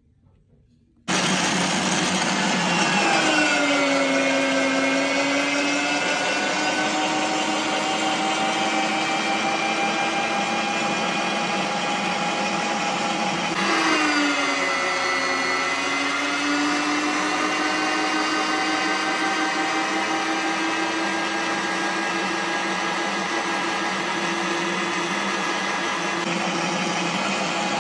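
Electric meat grinder switching on about a second in and running with a steady motor whine. The pitch sags as it takes up pink dough and forces it through the mincing plate, then sags again about halfway before steadying.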